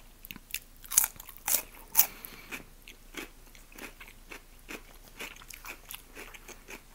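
Close-miked eating: three loud crunchy bites about a second in, half a second apart, then steady chewing with small wet clicks.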